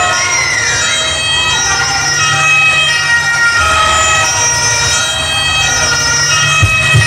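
Recorded soundtrack played over a sound system for a mime act: layered sustained tones that shift in pitch every second or so, with a few short wavering glides, over a steady low drone.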